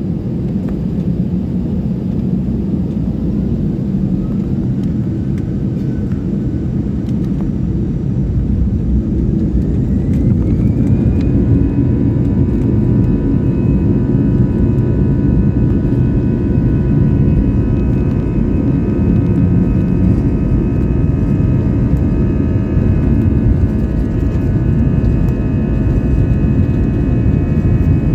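Airliner engines running with a heavy steady rumble. About ten seconds in, a whine rises in pitch and then holds as several steady tones, the engines spooling up.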